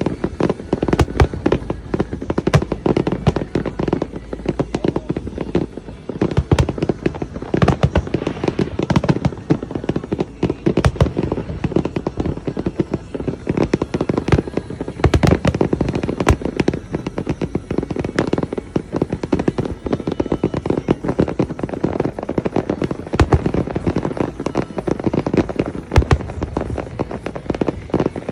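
Fireworks display: a dense, continuous run of bangs and crackling, with louder single booms every few seconds.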